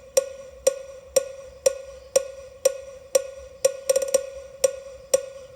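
Passive JBL 5-inch speaker playing a midrange test track: a single pitched percussion knock repeating about twice a second, with a quick roll of several hits about four seconds in.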